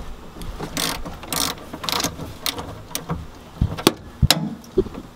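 Hand ratchet clicking in short, irregular strokes as it loosens the 14 mm bolt on a car battery's negative terminal, with a few sharper metal clinks about three and a half to four seconds in.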